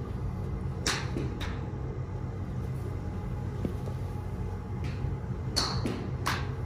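A fairway wood (a Royal Collection BBD306V 5-wood) strikes a golf ball off the mat about five and a half seconds in: a sharp metallic crack with a brief ringing. Other sharp cracks come about a second in and again just after the strike, over a steady low rumble.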